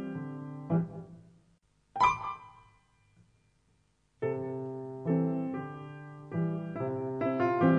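Solo piano score playing soft chords that break off about two seconds in with a sharp, bright accent that rings away. A short near-silent pause follows, and the piano chords resume about four seconds in.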